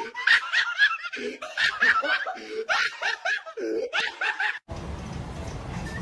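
Hearty laughter in short, repeated bursts, cut off abruptly about four and a half seconds in, after which only a steady low background rumble and hiss remain.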